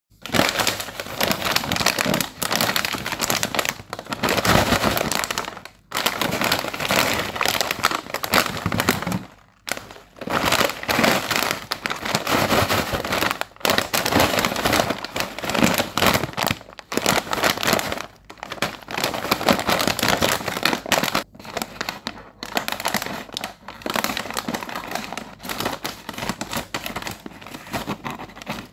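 Plastic snack packets crinkling loudly as they are handled and squeezed, in spells of a few seconds with short pauses between.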